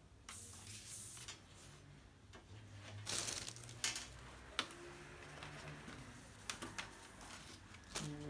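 A cloth rubbing and wiping over a laptop keyboard, making rustling swishes, with a few sharp clicks from the keys and the laptop being handled.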